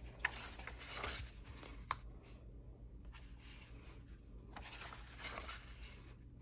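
Paper pages of a coloring book being turned and smoothed flat by hand: a soft rustle about a second in and another about five seconds in, with a light tap near two seconds.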